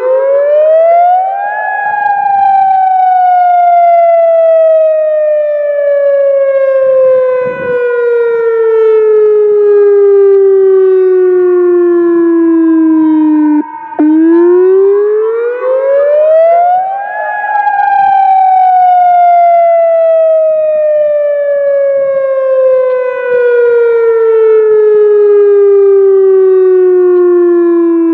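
ATI HPSS-32 electronic outdoor warning siren sounding a wail: the tone climbs quickly for about two seconds, then falls slowly for about twelve. A brief break follows, and the cycle starts over about halfway through.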